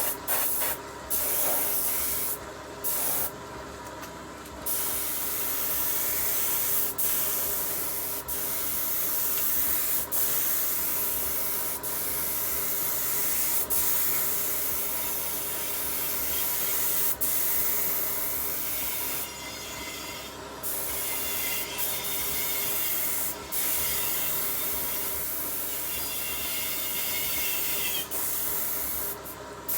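Power sander working on bare sheet steel: a few short bursts, then a long steady run of hiss over a constant motor hum, with brief dips several times.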